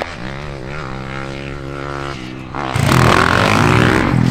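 A motor running and revving, its pitch rising and falling. About two and a half seconds in, a louder, rougher engine sound cuts in suddenly and holds.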